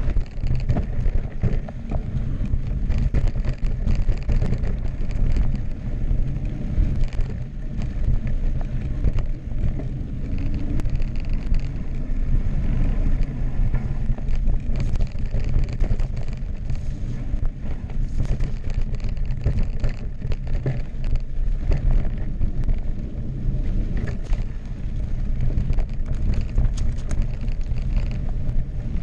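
Mountain-bike ride down a rocky dirt trail on a 2016 Specialized Enduro Expert Carbon: wind rumbling over the GoPro's microphone, with tyres rolling over dirt and rocks and the bike clattering and clicking over bumps.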